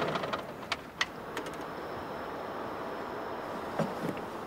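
A tractor running steadily, with a few light clicks in the first second or so and two small knocks near the end, as a boot comes down on the tractor's metal step.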